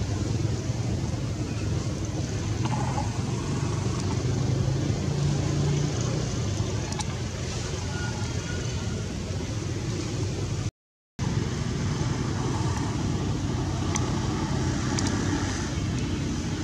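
Steady low rumble with a low hum, briefly cut out about eleven seconds in.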